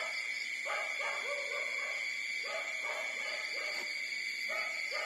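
Nursing puppies whimpering in a string of short, pitched cries, each sliding down in pitch, with a steady high tone underneath.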